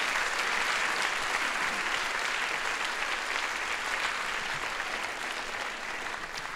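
Audience applauding, a dense sustained clapping that slowly dies down toward the end.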